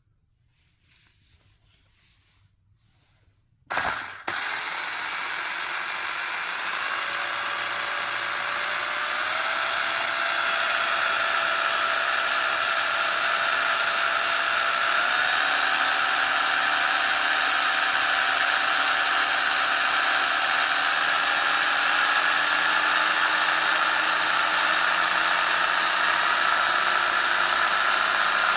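Brushless electric motor and drivetrain of an RC buggy whining, starting with a sharp click about four seconds in, then climbing in pitch in small steps as the throttle is slowly raised toward full speed.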